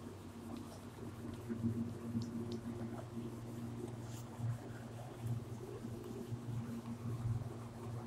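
Felt board duster rubbing across a whiteboard in uneven strokes, over a steady low hum.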